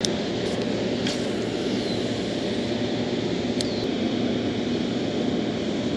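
Steady rush of water pouring over a dam's spillway, an even noise with no let-up, with two faint clicks, one about a second in and one a little past halfway.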